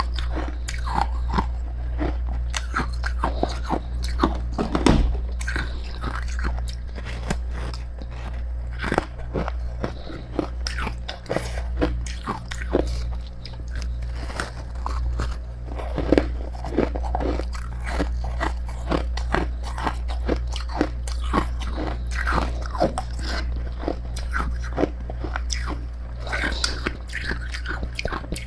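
Freezer frost ('snow ice') being bitten and chewed close to the microphone: dense, irregular crisp crunches throughout, over a steady low hum.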